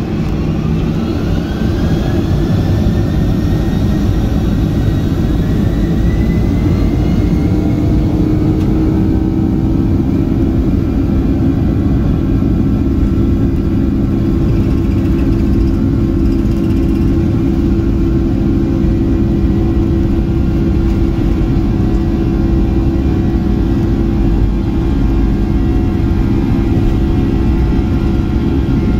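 Boeing 757 turbofan engines spooling up for takeoff, heard from inside the cabin: a rising whine over the first several seconds, then a steady loud run at high power with a heavy low rumble underneath.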